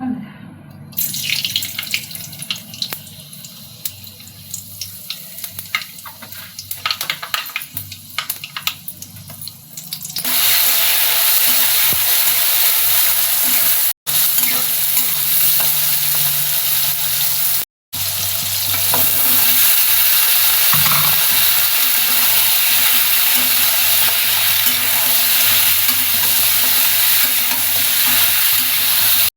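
Food frying in hot oil in a pan: scattered crackles at first, then from about ten seconds in a loud, steady sizzle, broken twice by brief gaps of silence.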